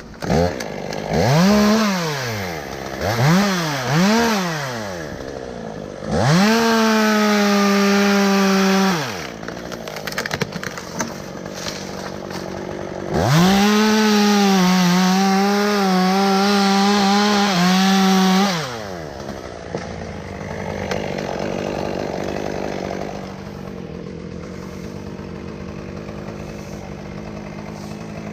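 Gas chainsaw blipped three times, then held at full throttle for about three seconds and dropped back to idle. It runs at full throttle again for about five seconds, its pitch wavering under load as it cuts wood, then falls back to a steady idle.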